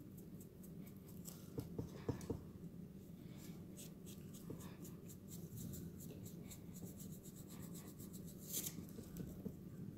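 Foam sponge brush dabbing and blotting paint onto the edges of a stack of thin wooden shutter pieces: faint soft scratchy dabs, with a few small clicks about two seconds in and a louder scrape near the end, over a low steady hum.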